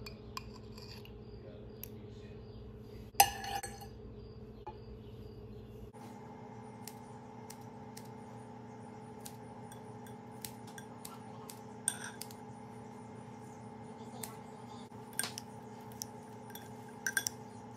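Metal kitchen scissors and utensils clicking and clinking against a glass bowl of couscous salad as jalapeño slices are snipped in and the salad is tossed: scattered light clicks with a louder knock about three seconds in, over a faint steady hum.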